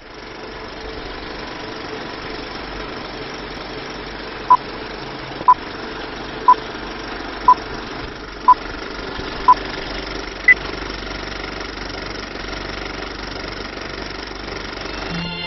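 Old-film countdown leader sound effect: a steady film-projector whirr with six short beeps a second apart, then one higher-pitched beep.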